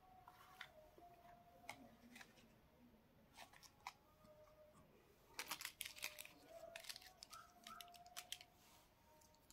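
Small plastic toy kitchen pieces being handled and set down: scattered light clicks and clacks, with a quick cluster of them about halfway through.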